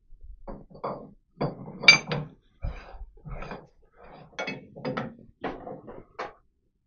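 Steel collet chuck body being fitted onto a lathe spindle nose and its mounting ring tightened with a C-spanner: a run of irregular metal knocks, scrapes and clinks, with one sharper ringing clink about two seconds in.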